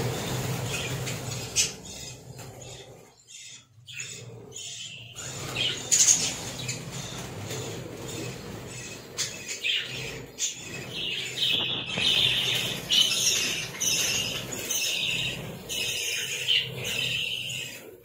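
A flock of budgerigars chirping and chattering, with a flurry of wingbeats as the flock takes off at the start; the chirps come thick and repeated, busiest in the second half.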